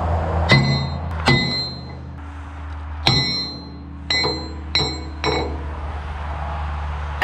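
Sledgehammer striking a stuck steel pin in an excavator arm's linkage: six ringing metal clangs, two close together near the start and four more from about three seconds in. A steady low engine hum runs underneath.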